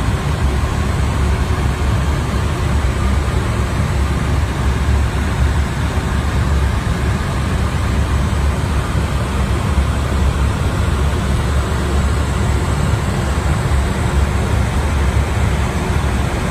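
Steady airliner cockpit noise in cruise flight: the constant rush of airflow and engine hum, a dense low rumble with no breaks.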